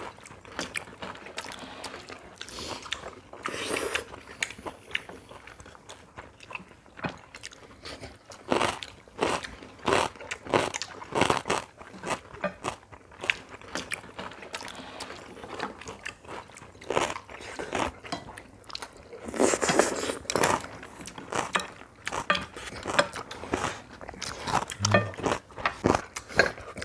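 People eating rice-bowl dishes at a table: chewing with many short sharp clicks and taps. A brief hiss-like noise comes about twenty seconds in.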